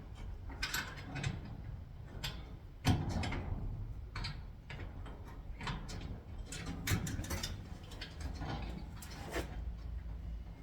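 Irregular clicks and knocks of small metal lock hardware being handled while a 1/4-inch bolt is fitted into a garage door lock's handle bracket, with a louder knock about three seconds in.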